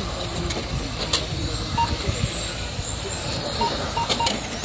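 Electric RC touring cars running on the track, their motors giving high whines that rise and fall as they pass, with a few short electronic beeps and sharp clicks over steady background noise.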